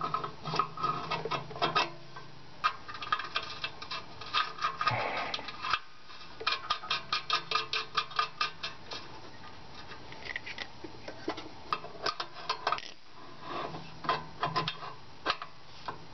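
Metal wrench clicking and scraping on a spark plug defouler as it is tightened into the catalytic converter's oxygen-sensor port, in irregular runs of quick ticks, several a second at times.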